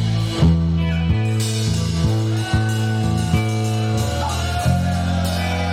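Rock music with guitar: held chords over a bass line, changing about once a second.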